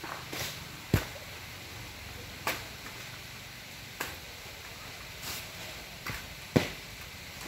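Coconuts being cut from a palm and dropping to the ground: a series of sharp chopping strokes and heavy thuds a second or more apart, the loudest thuds about a second in and near the end.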